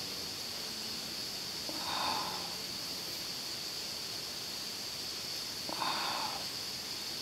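Steady high-pitched hiss with two short, breathy puffs of air near the microphone, about four seconds apart.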